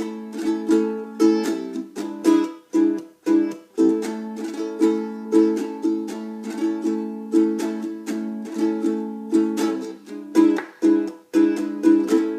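Ukulele strummed in a calypso rhythm (touch, roll, up, down, up), alternating with a 'touch, roll, up, up, up' variant in which the strings are damped between the upstrokes, cutting the chords off short. The chords move between A, E7 and D.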